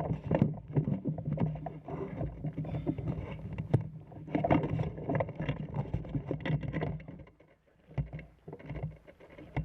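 Dense irregular knocking and rustling of handling noise over a steady low hum. It drops away about seven seconds in, leaving a few scattered knocks.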